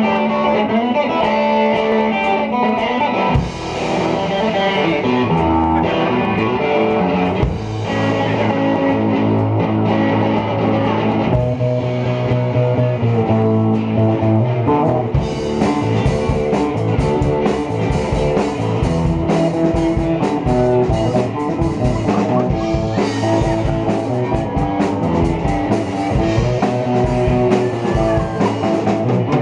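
Rock band playing live without vocals: electric guitar and bass guitar, with the drum kit coming in fully about halfway through.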